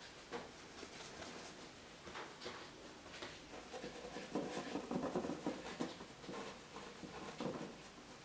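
Bristle brush scrubbing and dabbing oil paint onto a canvas: a run of short scratchy strokes, busiest and loudest about four to six seconds in.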